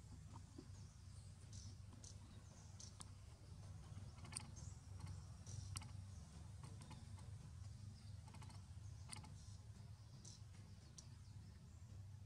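Near silence: quiet forest ambience with a steady low hum, scattered faint sharp clicks and faint high chirps.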